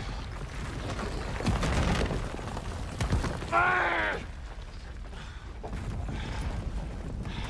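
A low rumble with a few thuds and cracks, and about three and a half seconds in a man's pained cry lasting about half a second.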